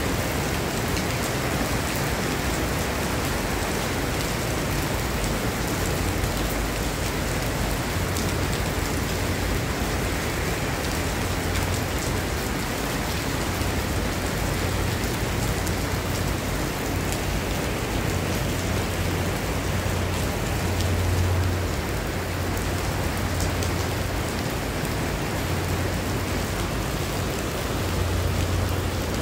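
Heavy tropical rain falling steadily on paving and other hard surfaces, an even hiss with a low rumble underneath that swells now and then.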